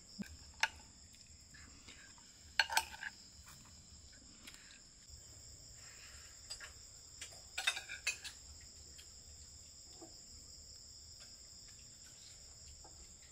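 Steady, high-pitched chirring of insects, with a few sharp clinks of spoons against plates and bowls. The loudest clinks come about two and a half and eight seconds in.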